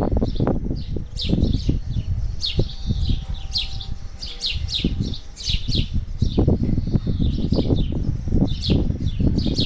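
Small birds chirping repeatedly, with quick, high, falling chirps several times a second, over a loud, uneven low rumble.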